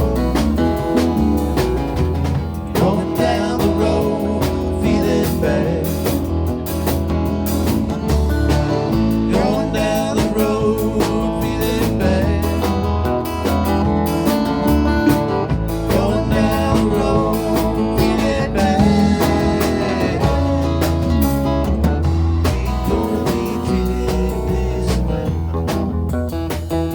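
Live band playing an instrumental passage: guitar over bass and a drum kit with a steady beat.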